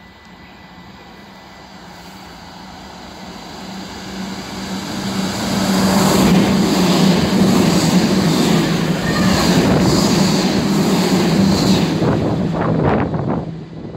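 NS SGMM Sprinter electric multiple unit approaching and passing through the station at speed without stopping. The noise swells over a few seconds, stays loud with a regular clatter of wheels for about six seconds, then falls away near the end.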